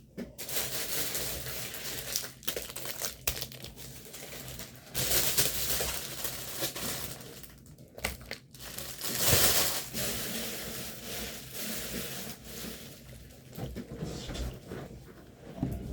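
Plastic packaging crinkling and rustling as a diamond painting kit is handled and opened, in irregular surges, loudest about five seconds in and again near the middle.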